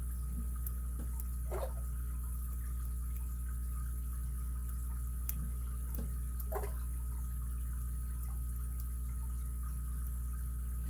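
Faint clicks and scrapes of a lock pick working the pins of an ABUS 83CS/55 padlock, a few times, over a steady low hum.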